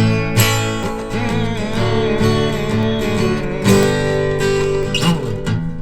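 Guitar strumming chords in an instrumental passage between sung lines of a pop-rock song.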